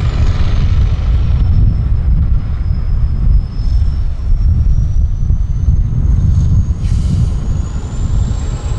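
Tatra 6x6 trial truck's engine running under load while crawling over rough ground: a deep, steady rumble with a thin high whine that drops over the first couple of seconds, then slowly climbs again near the end.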